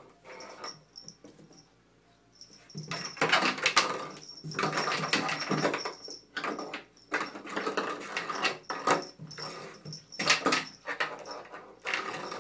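A kitten's paws and claws scrabbling and skidding on the hard surface of an empty bathtub in quick irregular bursts, starting about three seconds in.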